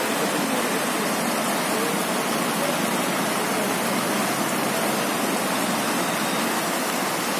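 Floodwater rushing across a road, a steady, unbroken roar of moving water.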